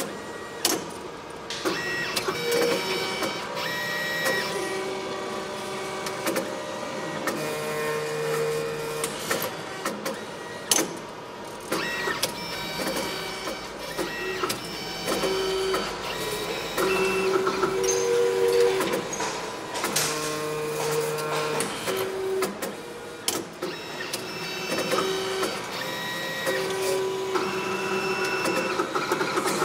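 An automated machine's small electric motors moving in short runs, printer-like. It gives steady whining tones at several pitches that start and stop every second or two, with clicks in between.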